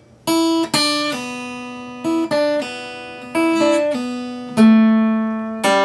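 Acoustic guitar playing a short run of single plucked notes, each left to ring. Some notes drop to a lower pitch without being plucked again: pull-offs from the second string's third fret to the open string.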